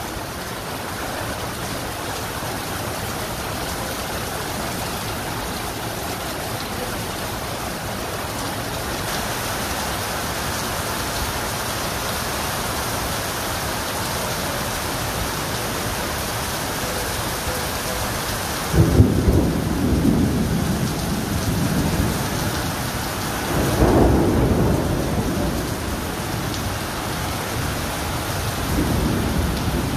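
Heavy rain pouring steadily onto stone paving. Low rumbles of thunder break in about two-thirds of the way through, again a few seconds later, and more weakly near the end.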